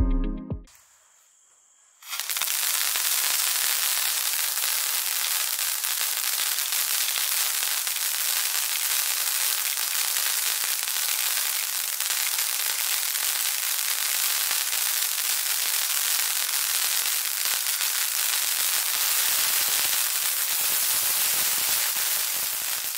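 King's Sword crackling-sword firework novelty burning, a dense, steady crackle and hiss of sparks and crackling stars that starts suddenly about two seconds in.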